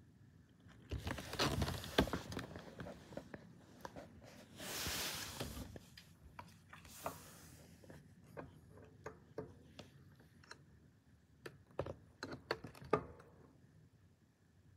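Cats shifting and scuffling on a hardwood floor under furniture: soft rustling and scattered light taps and clicks, with a short burst of hissing noise about five seconds in.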